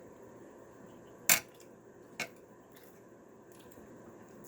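Utensils or dishes clinking during a meal: one sharp clack about a second in and a lighter one about a second later.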